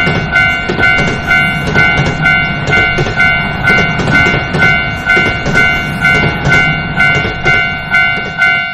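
Japanese railroad crossing warning bell ringing its steady "kan-kan", about two dings a second, over the low rumble of a passing train. The bell stops right at the end.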